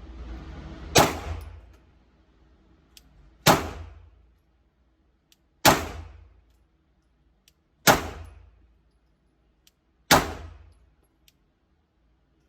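Five single shots from a 9mm Glock 19 Gen 4 pistol, about two seconds apart, each a sharp crack with a short ring-out.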